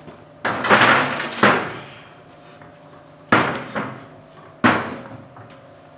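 Clatter and bangs of a Generac portable generator in its steel tube frame being hoisted onto a workbench: a rattling clatter lasting about a second from about half a second in, then two sharp bangs about a second apart as it is set down.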